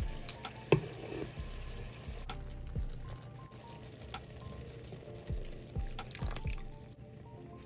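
Water poured from a kettle into a frying pan of simmering tomato wedges, over background music. Sharp clinks of a metal spoon against the pan, the loudest about a second in.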